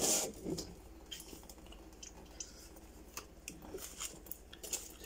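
Faint, irregular small ticks and wet squishes from a freshly watered plastic-jug planter at a stainless steel kitchen sink: water draining and dripping, and the wet pot being handled.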